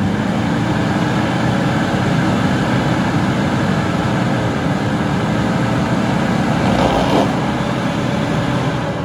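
A four-wheel-drive SUV's engine running hard and steady while it works up a hard-packed dirt trail obstacle.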